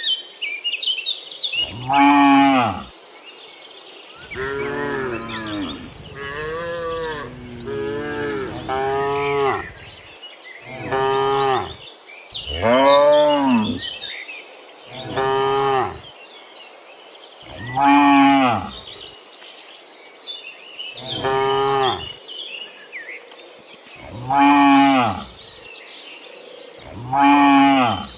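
Cattle mooing again and again, about ten long calls that each rise and fall in pitch. Between about four and ten seconds in, several lower calls overlap.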